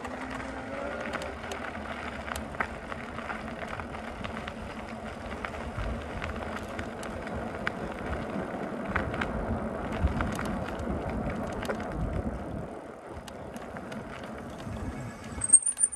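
Fat-tyre electric bike rolling along a gravel road: steady tyre and gravel noise with small crunching clicks, and a car passing near the start. A brief high squeal comes right at the end.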